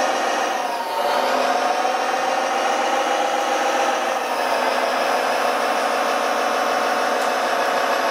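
Steady electric-motor whir of a radio-controlled model truck's drive as it hauls a low-loader trailer, with a brief dip in pitch and level about a second in.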